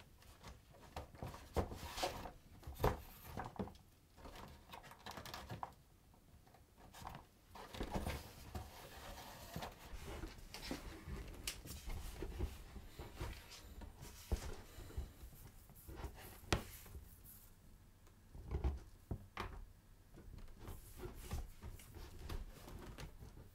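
Hands handling and working on a stitched vegetable-tanned leather bag: irregular rubbing, scuffing and small clicks of leather and fingers, with the sharpest knocks about two and three seconds in.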